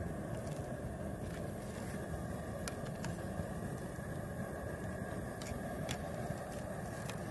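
Outdoor propane burner running under a boiling stockpot, giving a steady low rushing noise, with a few faint clicks.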